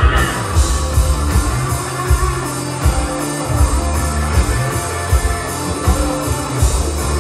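Live rock band playing amplified electric guitar, bass guitar and drums, with a steady pulsing bass and kick-drum beat.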